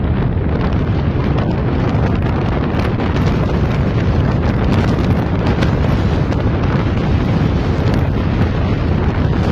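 Loud wind rush and buffeting on the microphone from driving fast in an open-top Ford Mustang convertible, a steady low rumble with the car's running noise underneath.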